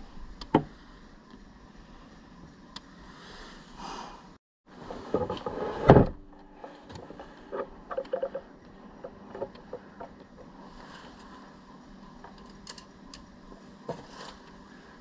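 Hands handling a block of ballistic gelatin on a wooden workbench: a sharp knock about half a second in, a louder clatter of knocks and rubbing around the middle as the block is lifted off the bench, then small scattered taps as it is turned over.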